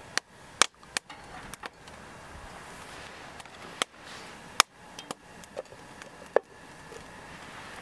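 About a dozen sharp, light knocks and clicks of hard objects, irregularly spaced, over a faint steady hiss.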